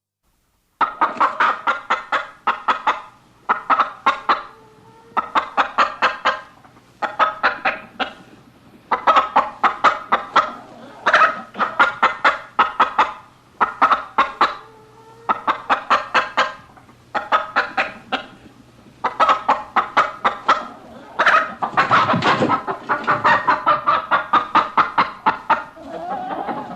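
A tune played on an electronic keyboard using a chicken-clucking sound-effect voice: rapid clucks grouped into short rhythmic phrases with brief gaps, starting about a second in. Near the end the phrases run together more densely, with a lower part underneath.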